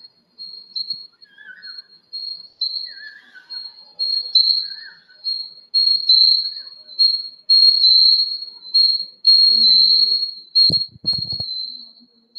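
A high-pitched whistling tone repeating in short pulses about one and a half times a second, growing louder, with a few knocks near the end.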